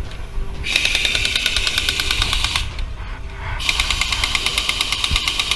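Pneumatic air tool run twice in bursts of about two seconds, each a rapid, even rattle.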